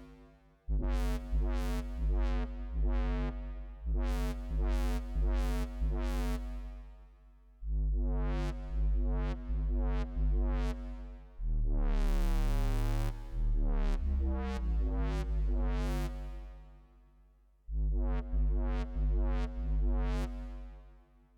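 Electronic music from hardware synthesizers and an MPC sampler: sustained synth chords over a heavy deep bass. It plays in short runs that stop, fade out and restart several times, with a brighter, buzzier chord about two-thirds of the way through.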